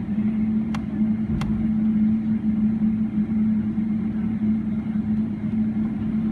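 Steady cabin drone of a Boeing 777-300ER taxiing, its GE90-115B engines running at taxi power, with a strong steady hum throughout. Two sharp clicks come a little over half a second apart, about a second in.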